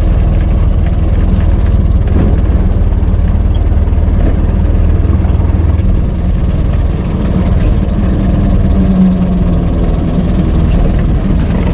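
Old car's engine running steadily, a deep, even rumble with no revving.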